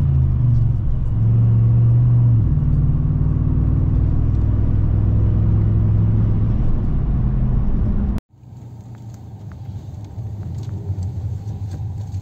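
Car engine running under way, its note shifting in pitch a few times with the throttle. About eight seconds in it cuts off abruptly to a quieter rumble with faint ticks.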